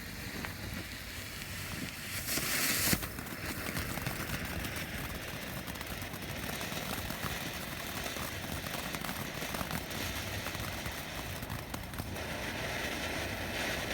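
Small consumer firework going off: a brief hiss about two seconds in, then a steady stream of fine crackling, with no single big bang.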